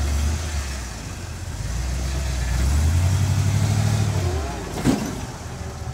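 Jeep CJ5 engine pulling the Jeep slowly along a dirt trail. The engine note rises for about two seconds in the middle, then eases back toward idle. A single sharp knock comes shortly before the end.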